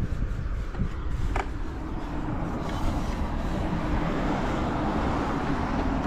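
Yamaha TDR50 (3YF) 49cc two-stroke single-cylinder engine running after a cold start, getting a little louder and busier in the middle as it picks up revs. The seller presents it as running with no abnormal noises.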